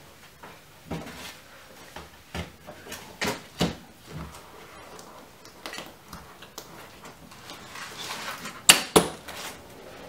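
Knocks, clicks and scrapes of a Lennox furnace's filter slot and its metal access cover being handled and fitted back on, ending in two sharp knocks close together a little before the end.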